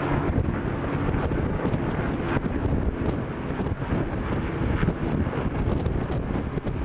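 Wind buffeting the microphone, with the faint steady drone of distant racing powerboat engines underneath.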